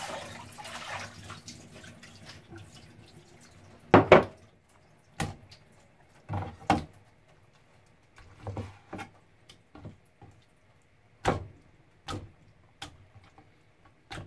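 A kitchen tap running over chicken breast being rinsed, dying away within the first second or two. Then about a dozen irregular sharp knocks on a plastic cutting board as the chicken breast is set down and sliced with a cleaver. The loudest is a double knock about four seconds in.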